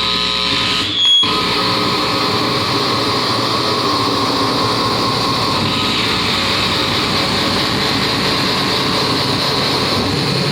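Live harsh noise music: a loud, dense, unbroken wall of distorted electronic noise. It cuts out briefly about a second in, then comes straight back.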